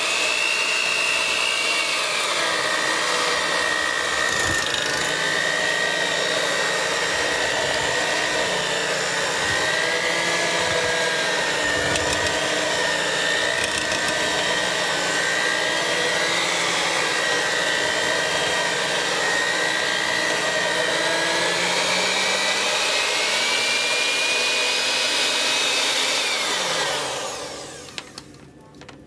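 Electric hand mixer running with its beaters in thick cream soap paste: a steady motor whine that dips and wavers in pitch as the load changes, then winds down and stops near the end. The motor was overheating from the heavy paste and had begun to smoke, which the owner thinks burnt it out.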